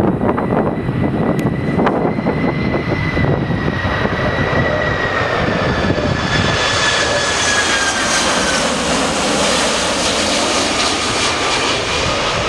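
Boeing 767 jet engines roaring as the airliner passes, their whining fan tones slowly falling in pitch. Wind rumbles on the microphone during the first few seconds.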